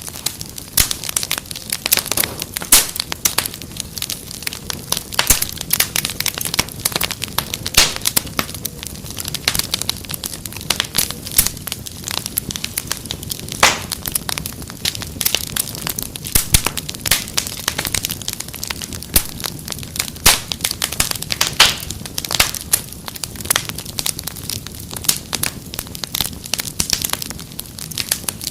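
Wood fire crackling in a fireplace: a dense, irregular run of sharp pops and snaps over a steady low hiss.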